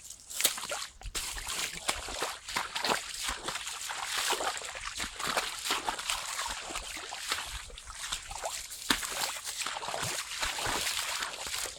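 Feet wading through shallow swamp water: irregular sloshing and splashing steps through water over mud.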